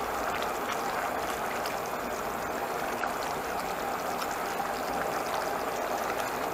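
Thick homemade barbecue sauce bubbling steadily as it simmers in a pan and is stirred with a spatula. It is reducing and nearly thick, close to done.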